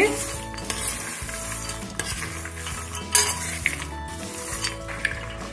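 A steel spoon stirring fried shakarpara pieces through sticky sugar syrup in a stainless steel bowl. It makes a wet scraping and rustling, with a few clinks of the spoon against the bowl.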